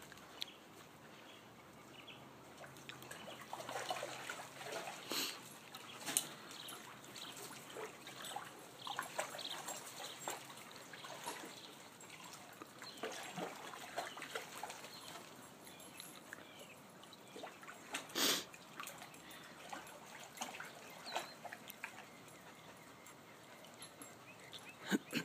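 Water in a plastic kiddie wading pool splashing and sloshing as a pit bull wades through it, in short, irregular splashes, with one louder splash about three-quarters of the way through.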